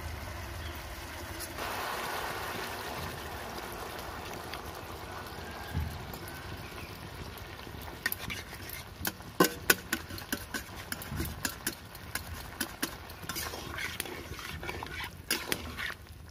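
Chicken curry simmering in an aluminium kadai, a steady bubbling hiss. From about halfway, a metal spatula stirs the chicken and scrapes and clicks against the pan many times.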